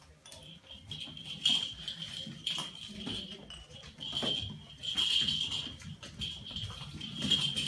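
Grand basset puppies playing and tussling over plush toys: small low growls, scrabbling paws and scattered clicks and taps. A high thin tone at one steady pitch comes and goes throughout.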